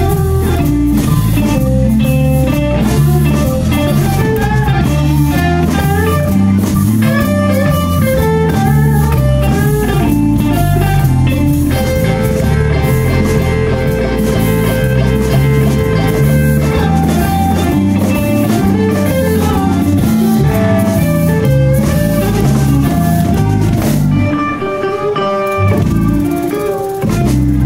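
Live blues band playing a slow blues: guitar over bass and drum kit, with one long held note about halfway through. The bass and drums drop out briefly near the end.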